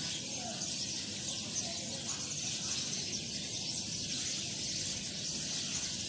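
A large flock of small birds calling together in a dense, steady, high-pitched chatter of many overlapping chirps.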